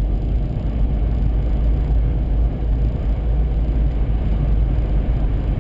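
Steady low vehicle rumble heard from inside a car, with no distinct sounds standing out.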